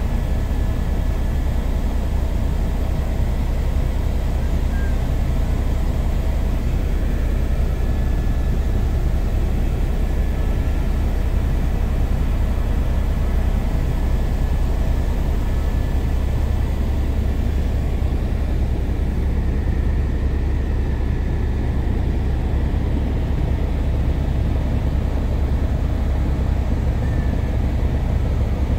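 Helicopter cabin noise in flight: a loud, steady low drone of rotor and engine, with a few faint steady whines above it.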